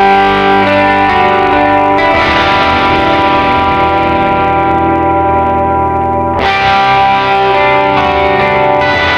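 Background music led by guitar with effects, the chords changing about every few seconds.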